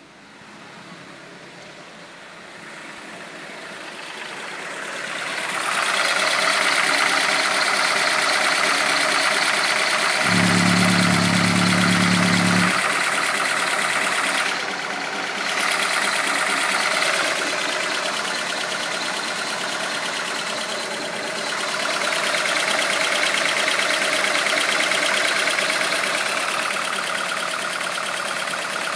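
Ford Galaxy 2.0i petrol engine (code NSE) idling steadily. It grows much louder over the first several seconds as the microphone nears the engine. A steady low hum joins for about two seconds near the middle.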